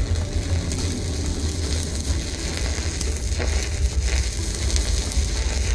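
Electric arc welder laying a weld bead: a steady crackling sizzle from the arc that cuts off abruptly at the end.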